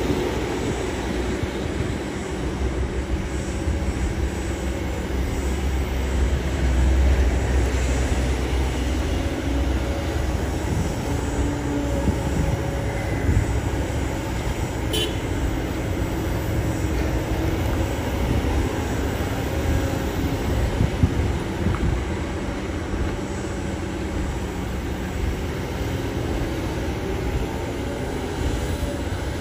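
Kobelco SK200 excavator's diesel engine running steadily under load with its hydraulics working, as the machine digs wet mud and swings to load a dump truck. A single sharp knock about two-thirds of the way through.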